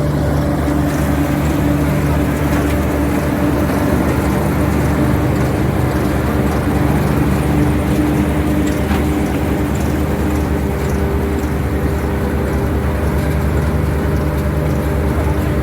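Engine of corn silage harvesting machinery running steadily at an even pitch.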